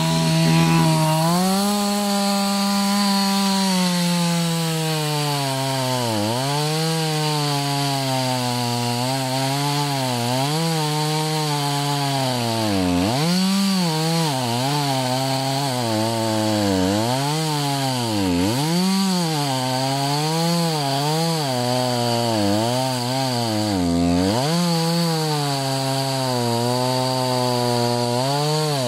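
Stihl chainsaw running at high revs while ripping lengthwise along a log to cut a plank. Its engine pitch rises as it revs up at the start, then dips and recovers again and again as the chain bites into the wood: a hard cut along the grain.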